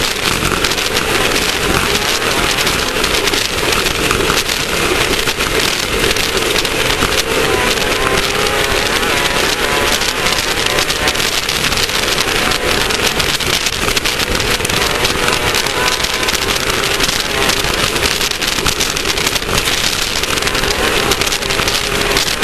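Class 1600 off-road race car running at speed: the air-cooled Volkswagen flat-four engine drones with a wavering pitch under a loud, constant rush of wind and dirt noise.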